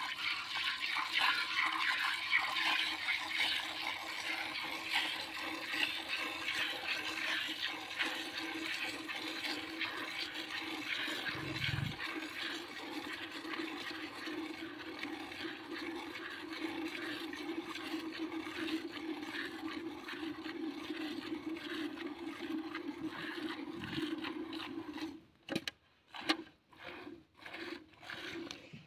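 Milk squirting from a cow's teats into a metal bucket during hand milking, a steady hiss. About 25 seconds in it breaks up into separate squirts, about two a second.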